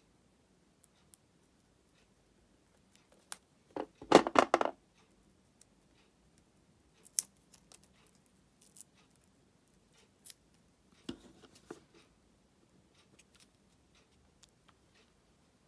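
Small plastic key fob parts being handled by hand: scattered light clicks and taps, with a short rasping scrape about four seconds in and a second, softer cluster of scrapes and clicks near the end as the round logo badge is pressed onto the fob.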